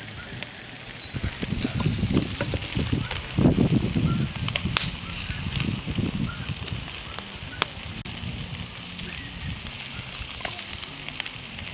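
Wood fire under a parrilla grill crackling, with chicken and pork sizzling on the grate: a steady hiss broken by a few sharp pops. A low rumbling noise swells in and out during the first half.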